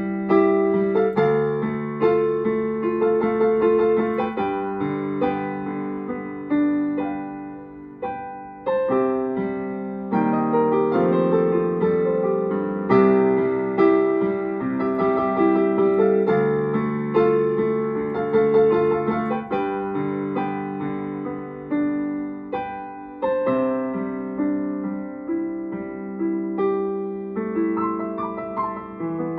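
Solo piano played by hand: a melody over sustained chords, mostly in the middle register, each note struck and then fading.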